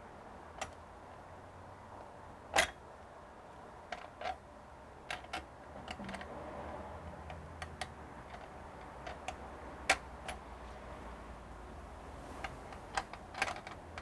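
Scattered light clicks and taps of small parts being handled, with two sharper knocks, one a couple of seconds in and one about ten seconds in.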